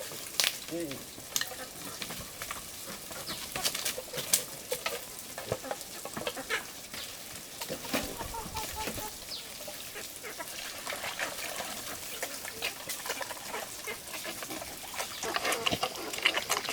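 Irregular sharp clicks and rustling, with a short run of high bird chirps about eight seconds in, busier near the end.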